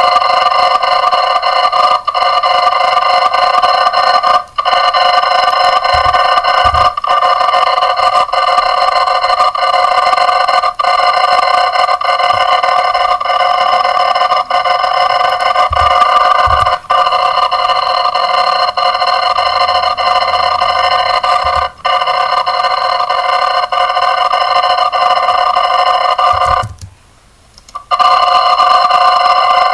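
Alarm sound effect played back greatly sped up, its ringing run together into one loud, continuous ringing made of several steady pitches. It has faint breaks about once a second and stops for about a second near the end before resuming.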